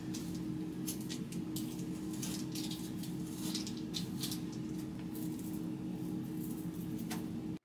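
Hands scrunching and combing through damp curly hair coated in conditioner and mousse, giving faint crackling, squishing rustles over a steady low room hum.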